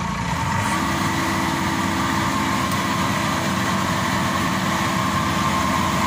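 Maxxi Bimo 102 combine harvester's diesel engine revving up about half a second in and holding steady at high revs as the machine moves on its tracks.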